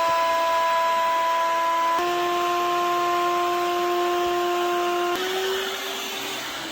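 An electric power tool's motor running with a steady whine over a hiss. The pitch steps slightly higher about two seconds in, and the whine falls away after about five seconds.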